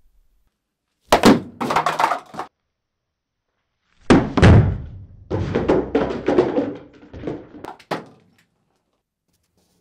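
A wooden baseball bat smashes through a stack of paper cups: a heavy hit, then a long clatter of cups scattering. A shorter burst of hit and rattle comes about a second in; the main strike, about four seconds in, is the loudest.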